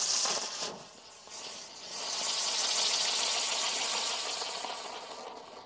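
Firework pinwheel on top of a Sky Pioneer Jungle Cruise fountain burning, a steady high hiss of its spark spray. The hiss dips about a second in, swells again and fades near the end.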